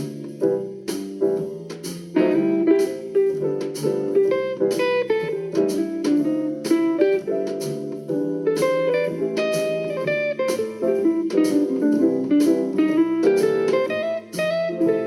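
Mecha A39 10-watt Bluetooth speaker playing guitar music for a sound test: a steady run of plucked guitar notes with little deep bass.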